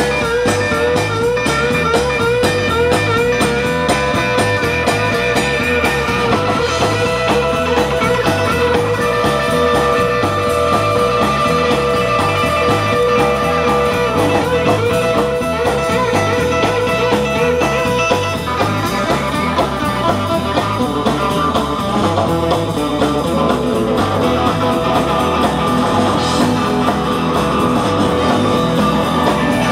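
A live blues band playing an instrumental passage. An electric guitar plays lead in long held notes, some with a wavering vibrato, over a steady bass and drum groove.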